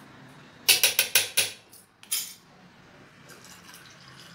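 A quick run of about six sharp metallic clinks in under a second, then one more clink: a steel spoon knocking against steel bowls. Near the end, water pours softly into the steel bowl of soaking semolina.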